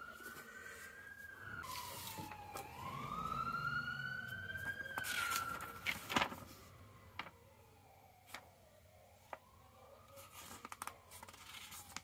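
A siren wailing, rising and falling in pitch about twice and fading in the second half. Over it come paper rustling and sharp handling knocks as a booklet is opened and its pages turned, loudest about five to six seconds in.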